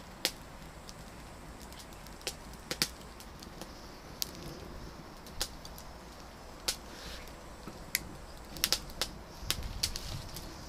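Fire crackling in a mangal barbecue grill: a dozen or so sharp pops at irregular spacing, with a brief low rumble near the end.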